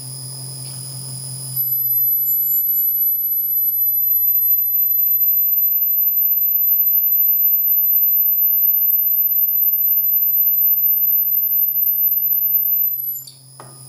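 Milling machine with its end mill cutting a magnet pocket in an aluminium ring, giving a steady high-pitched whine over a low hum. The whine gets louder about a second and a half in and stops just before the end.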